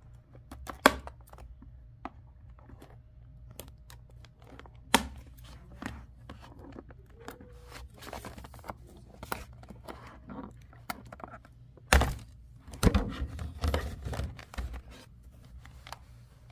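Scissors snipping the plastic ties that hold a doll to its cardboard box backing, with rustling and crinkling of the packaging. Scattered sharp snips and clicks, and a louder spell of knocking and handling noise about twelve seconds in.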